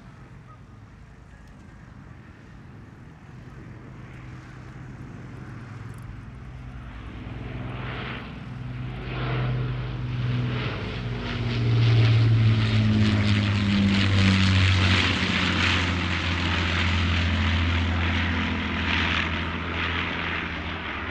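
Avro Lancaster bomber's four Rolls-Royce Merlin piston engines droning in a low flyby. The propeller drone swells from faint to loudest about halfway through, drops slightly in pitch as the bomber passes overhead, and stays loud as it banks away.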